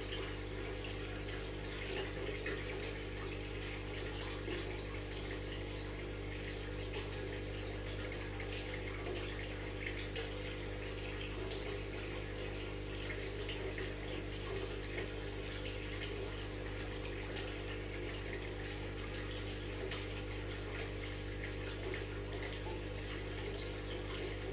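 Aquarium water splashing and trickling steadily from the filter, with many small drips and bubbles, over a steady low hum.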